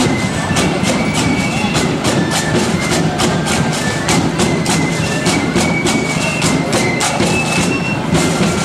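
Marching band playing in the street: drums striking about three times a second under a thin, high melody of short held notes.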